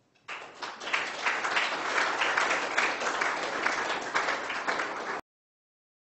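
Audience applauding. Dense clapping starts a moment in and is cut off abruptly about five seconds in.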